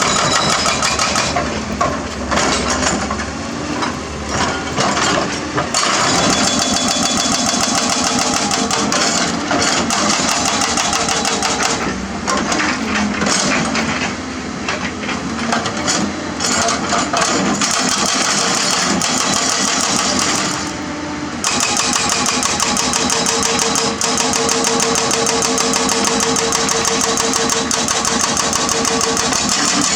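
Hydraulic excavator's diesel engine running hard under working load, its loudness rising and falling, with a brief dip about two-thirds of the way in. In the last several seconds a steady whine rises above the engine.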